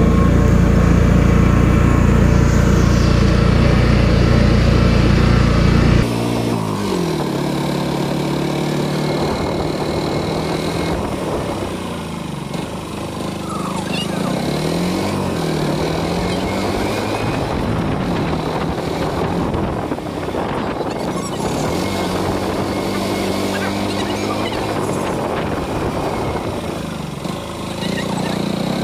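Engine of an open-sided passenger vehicle heard from on board while driving: a heavy low rumble for the first six seconds, then the engine note rising and falling again and again as it speeds up and eases off.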